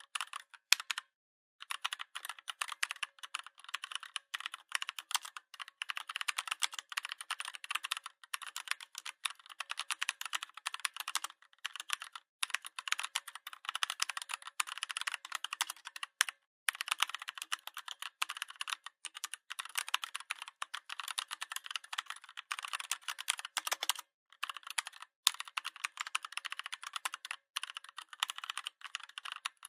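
Fast typing on a Redragon 61-key mechanical keyboard: a dense stream of key clicks with a few brief pauses.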